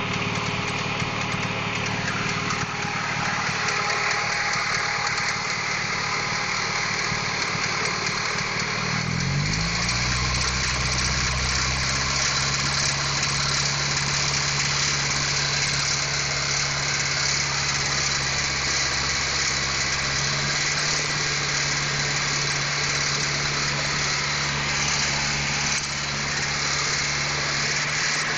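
Honda H22 inline-four engine idling with the knock it is recorded for; its idle speed drops about nine seconds in and then holds steady at a lower speed.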